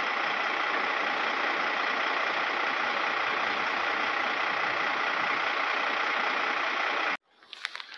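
SM42 shunting diesel locomotive idling at a standstill, a steady, even engine noise that cuts off abruptly about seven seconds in, followed by a few faint clicks.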